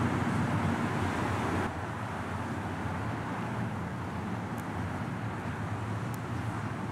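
Steady rumble of road traffic from the bridge's road deck, with some wind noise. The level drops and the sound gets duller about a second and a half in.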